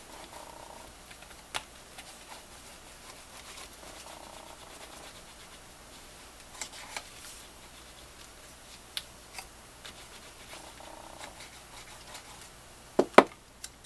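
Cardstock being handled and pressed flat on a cutting mat: soft rubbing and scratching with scattered light clicks, and two sharp knocks close together near the end.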